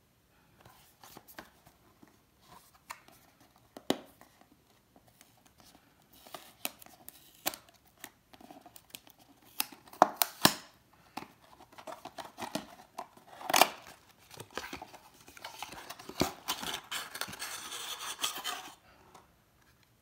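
Cardboard retail box of an Intel Core i7-9700K being opened by hand: a string of clicks, scrapes and sharp snaps of cardboard, the loudest about two-thirds of the way through. Near the end comes a few seconds of steady rubbing as the cardboard tray slides out of the sleeve.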